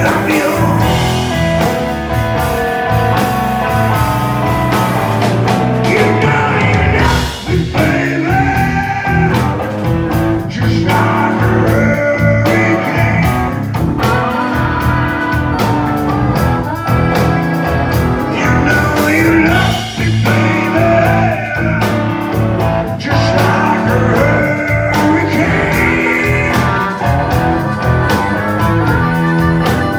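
Live blues-rock band playing loud, with electric guitar and bass, and a blues harmonica played with the harmonica cupped against a hand-held microphone, wailing with bent notes over the band.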